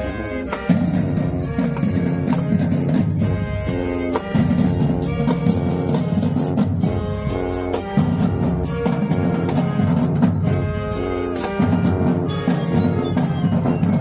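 Marching band playing, brass chords over drums, in loud phrases that repeat about every four seconds.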